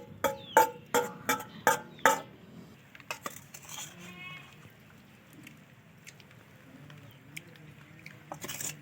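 Metal spatula tapping against a cooking pan: sharp ringing taps about three a second for the first two seconds, then a few lighter clinks and a short scrape near the end.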